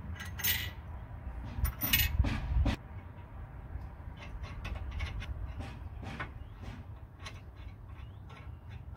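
Metal clinks and knocks of nuts, washers and bolts being handled and fitted by hand on a steel trailer-step mounting plate. There is a cluster of sharper knocks in the first three seconds, then lighter, sparser ticks.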